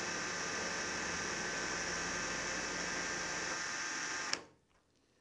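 Cordless drill running steadily with a whir, drilling out paint- and filler-clogged mirror mounting holes in a steel car fender. It stops abruptly with a click about four seconds in.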